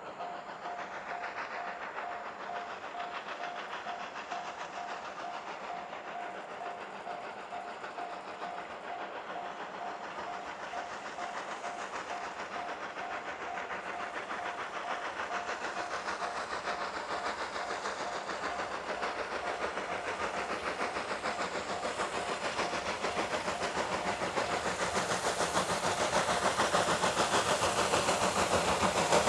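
Level-crossing alarm bell ringing in a steady repeating pattern, with the exhaust chuffing of steam locomotive D51-200 growing louder throughout as it works slowly up a grade toward the crossing.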